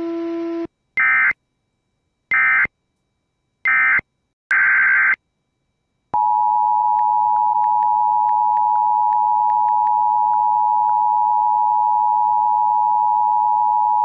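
Emergency Alert System broadcast over WJON's radio stream: four short bursts of the warbling SAME digital header data, then the two-tone EAS attention signal held steady for about eight seconds. This announces a severe thunderstorm warning. A low steady tone cuts off just under a second in.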